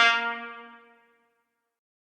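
Cartoon failure sound effect: the end of a held brass note, steady in pitch, fading out over about a second.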